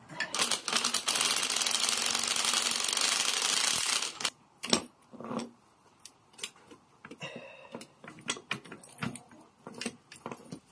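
Cordless impact driver running in one burst of about four seconds, driving the threaded rods of a coil spring compressor on a coilover strut. Then come scattered sharp metal clicks and knocks as the compressor and spring are handled.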